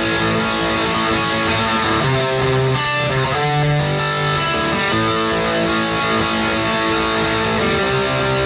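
Distorted electric guitar through a Marshall valve combo amp: a Les Paul with Gibson 490R/498T humbuckers playing strummed chords that are let ring and change every second or so.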